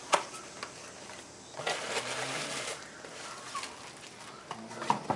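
Packaging being handled and unwrapped: soft crinkling of wrapping with scattered light clicks and taps, a rustle about two seconds in.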